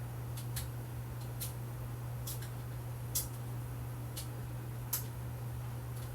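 Irregular sharp clicks, about nine of them and the loudest about three and five seconds in, over a steady low hum.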